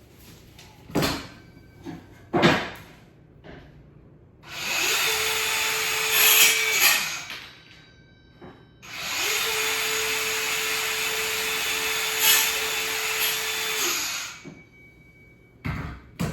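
Battery-powered mini chainsaw run twice through wood, each time spinning up to a steady whine and winding down, the first run short and the second about five seconds long. Two sharp knocks come before the first run.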